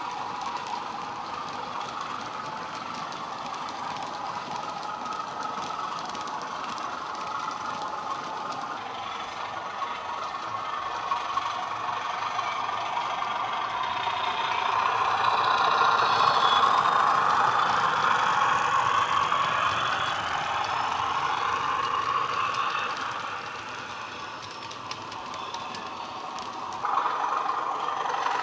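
Hornby Class 31 model locomotive's DCC sound decoder playing a recorded Class 31 diesel engine through its small onboard speaker, mixed with the rattle of the model's wheels on the track. The engine sound grows louder through the middle, falls away, then steps up sharply near the end.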